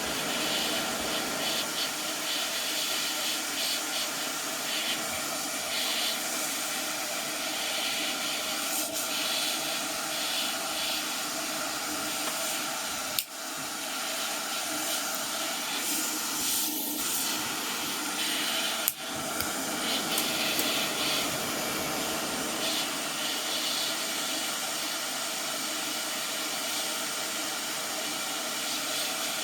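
ATTEN ST-862D hot air rework gun blowing a steady hiss of hot air onto a circuit board's solder joints to melt them for desoldering. The hiss breaks off twice, briefly, partway through.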